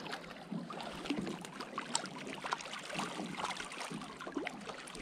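Light water lapping with many small, irregular clicks and ticks.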